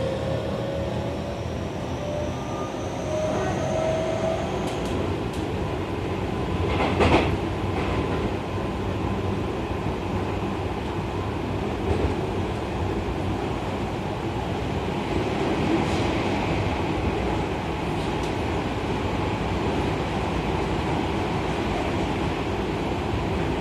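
Running sound of a Seibu 30000 series electric train from inside the car. The motor whine rises in pitch over the first few seconds as the train accelerates, then fades into steady rolling noise. There is a sharp knock about seven seconds in and a few lighter clicks of the wheels over rail joints.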